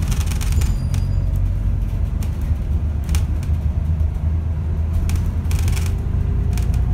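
Interior of an ADL Enviro400 MMC Smart Hybrid double-decker bus on the move: a steady low rumble from the drivetrain and road, with a few brief rattles from the bus body.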